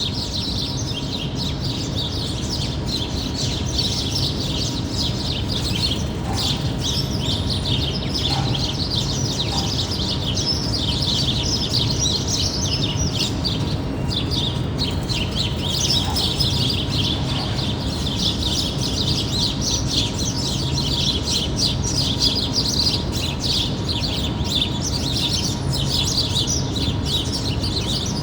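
Many small birds chirping rapidly and continuously, over a steady low rumble of distant city noise.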